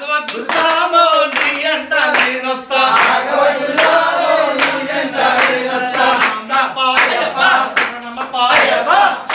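A group of men singing a devotional chant together, with rhythmic hand clapping keeping the beat.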